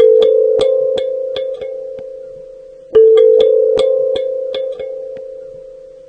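Metal balls ticking quickly, about five clicks a second, over a ringing bell-like tone. The tone sounds afresh about three seconds in and fades away in between.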